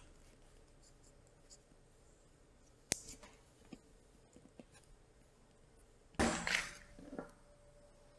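Quiet handling of a wire and heat-shrink tubing, with a single sharp click about three seconds in; about six seconds in a match is struck and flares alight with a short hissing scrape, the loudest sound.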